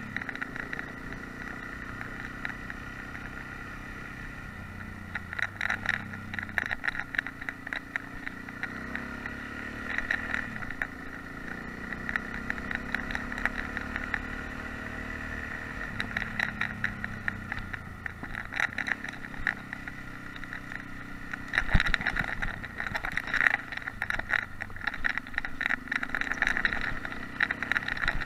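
Yamaha XT660X's single-cylinder four-stroke engine running on a gravel road, its revs rising and falling with the throttle. Bursts of clatter from bumps and loose stones come in several spells, heaviest in the last third.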